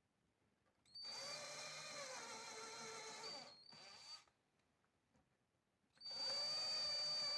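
Electric drill drilling pilot holes for drawer-slide screws. It runs in separate goes: one starting about a second in and lasting a couple of seconds, a short burst, a pause, then a louder run from about six seconds in. Its motor whine wavers in pitch as the bit cuts.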